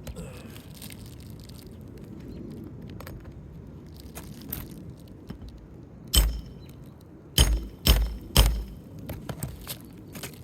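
Four sharp knocks from a metal shingle-removal tool working a roofing nail loose under an asphalt shingle. The first comes about six seconds in, and the other three follow in quick succession a second later, with lighter ticks and scrapes around them.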